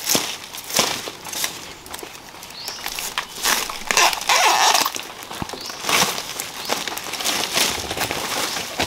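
Dry bamboo leaves and forest-floor litter crackling and rustling in irregular bursts while a bamboo shoot is worked loose by hand, with crunching footsteps through the litter near the end.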